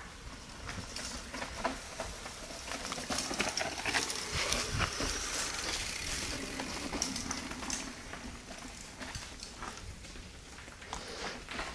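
Mountain bikes rolling down a rocky dirt trail: tyres crunching over stones and roots, with many small clicks and knocks from the bikes rattling over the bumps.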